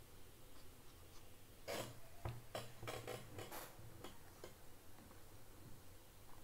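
Faint clicks from computer input used while drawing: a quick run of about half a dozen clicks in under two seconds, then one more a moment later.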